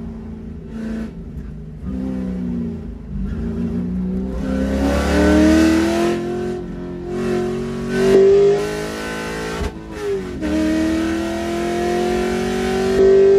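Race car engine heard from inside the car, running low and uneven at first, then accelerating hard with its pitch climbing steadily. About ten seconds in the pitch drops with an upshift, then climbs again to its loudest near the end.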